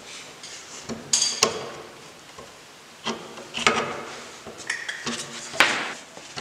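Scattered light metal clinks and knocks, about six spread over a few seconds, some with a brief high ring, from a latch and its screws being handled and set against a wooden door.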